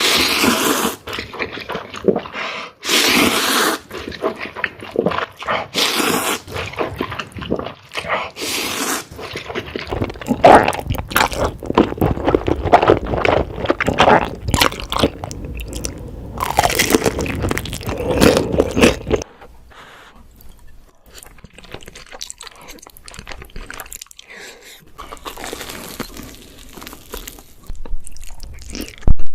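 Close-miked eating: crunchy bites and chewing of food, loudest in the middle, then quieter, softer chewing noises in the last third.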